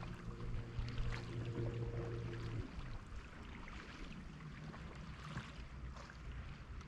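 Water splashing and lapping around a kayak, with a steady low engine-like hum that stops about two and a half seconds in.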